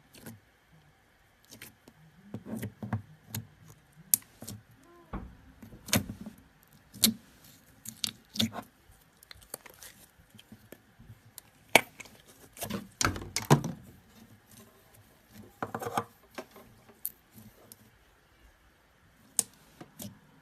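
Slime being squeezed, poked and stretched by hand, giving off irregular sharp clicks and pops, some louder around the middle of the stretch.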